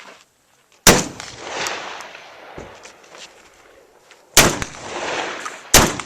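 Three shotgun shots, the first about a second in and the last two about a second and a half apart near the end, each followed by a long fading echo.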